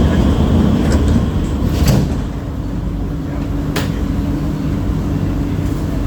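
Cabin noise of a C151B metro train on the move: a steady low rumble and hum from the running gear, with two sharp clicks about two seconds apart.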